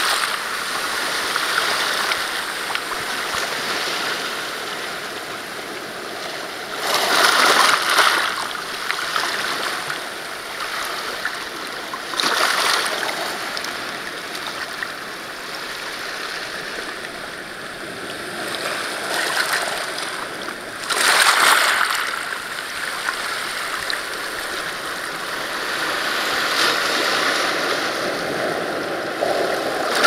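North Atlantic surf breaking on a rocky shore: a steady wash of water, with larger waves surging in three times and the loudest about two-thirds of the way through. Stones rattle back into the surf as each large wave draws off.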